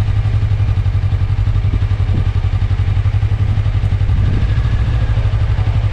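Suzuki V-Strom 250 motorcycle engine running steadily, a loud, even low rumble.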